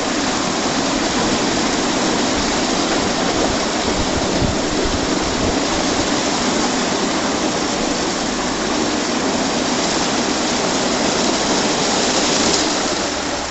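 WashTec SoftCare 2 Pro rollover car wash scrubbing a car: spinning foam brushes with water spraying, a loud, steady rush of water and slapping brush strips that drops off at the very end.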